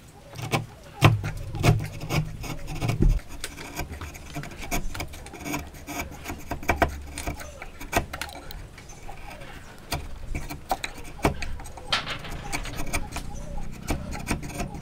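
A wood chisel pushed by hand paring out the socket of a hand-cut dovetail in hardwood: irregular scraping and cutting with sharp clicks as the edge takes off chips, busiest in the first few seconds.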